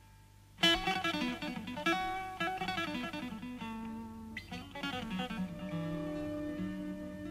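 Live rock instrumental led by guitar. It comes in sharply about half a second in after a near-silent pause, plays quick runs of notes, and settles into longer held notes near the end.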